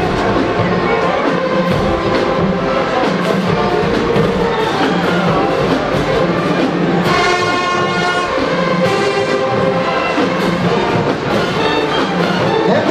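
Marching band playing, brass section to the fore (trumpets and trombones) over drums, with a loud held high brass chord about seven seconds in.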